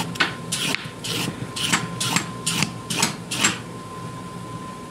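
Vegetable peeler scraping down a raw carrot in quick strokes, about two a second, eight in all, stopping about three and a half seconds in.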